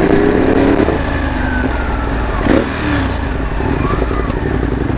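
Ducati motorcycle engine running under way at low speed, heard from the rider's position. The engine note drops about a second in and then carries on at low revs.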